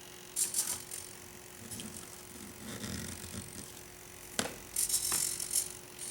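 Hard plastic parts of a Bruder toy bulldozer rattling and clicking as the model and its blade are moved by hand, in several short bursts with a sharp click past four seconds. A faint steady hum runs underneath.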